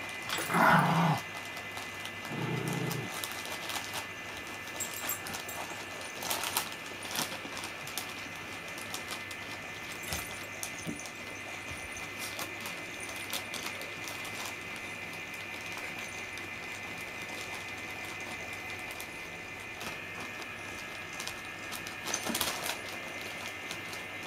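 Small battery motor of a motorised cat toy running steadily with a thin whine, with crinkling and rustling of its plastic cover as a cat paws at it. A brief animal call about half a second in.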